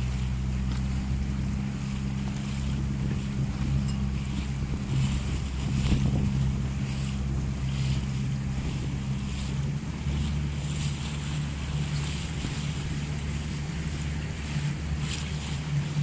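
Boat engine running steadily at constant speed, under water noise and wind on the microphone.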